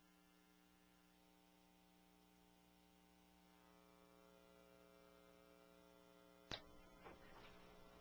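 Near silence with a faint steady electrical hum. A single click comes about six and a half seconds in.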